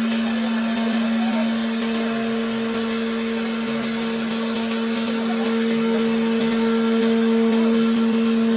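CNC milling machine's spindle running with a steady hum while its cutter mills along the edge of a wooden board, with a steady rush of cutting noise.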